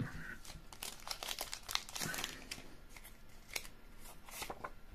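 A foil trading-card booster pack crinkling and tearing as it is opened, with the cards handled: a quiet run of short, irregular rustles and crackles.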